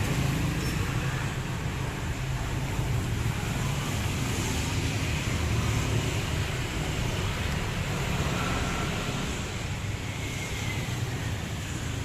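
A motor vehicle running steadily with road and traffic noise: a constant low rumble under an even hiss, with no revving.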